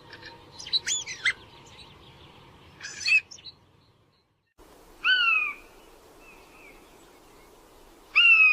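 Birds calling: a few quick sweeping chirps and a buzzy note, then after a brief break two louder, drawn-out downslurred calls about three seconds apart.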